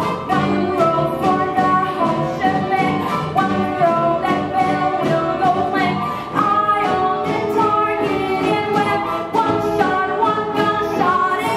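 Live band with a brass section, drum kit and electric guitars playing a brisk show tune, with a woman singing.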